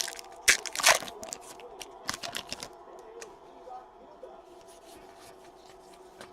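Baseball trading cards being handled and slid across one another by hand: short papery swishes, the loudest around half a second in and a cluster around two seconds in, with lighter rustles between.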